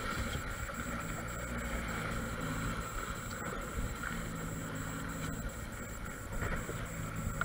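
Jet ski engine running steadily over the rush of churning water and wind, its low hum fading in and out every second or so.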